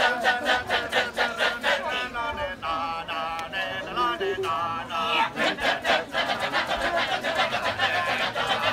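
Kecak chorus of men chanting the rapid, rhythmic "cak-cak-cak" of the Balinese Kecak dance. A wavering sung line comes through in the middle before the rapid chant takes over again.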